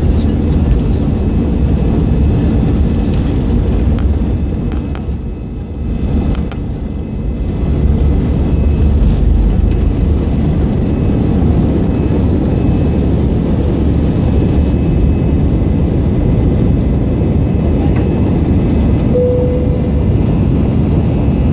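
Airbus A320 jet engines at takeoff thrust, heard from inside the cabin as the airliner speeds down the runway and lifts off. It is a loud, steady roar with a heavy low rumble.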